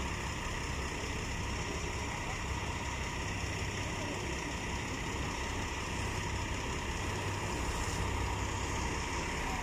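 Steady drone of a small boat's engine running, mixed with wind and water noise.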